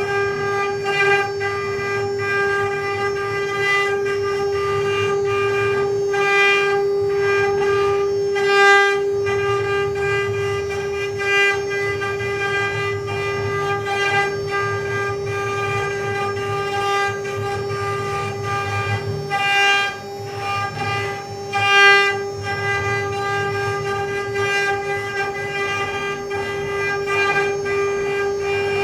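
Mini CNC router's spindle running at a steady high-pitched whine while its bit carves wood, with intermittent clicks and short swells as the cut bites.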